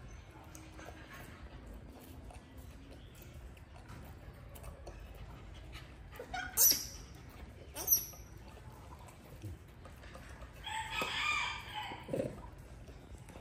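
Rooster crowing once near the end, a pitched call lasting about a second. Two short, sharp, high-pitched sounds come a second apart a few seconds before it.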